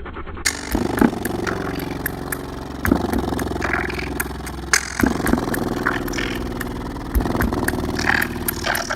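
An 18-inch Stereo Integrity subwoofer played hard on about 600 watts: heavy, steady bass with layered tones that swell and ease, and sharp rattling clicks scattered through.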